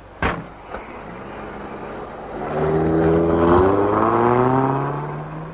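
A car door shuts, then a car engine pulls away and accelerates, its pitch rising steadily and growing loudest in the second half.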